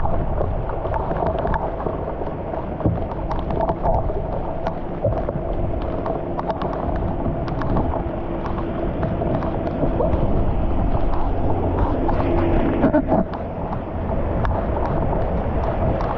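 Muddy floodwater rushing across a paved street, with wind buffeting the microphone. A faint steady hum joins about five seconds in and stops about thirteen seconds in.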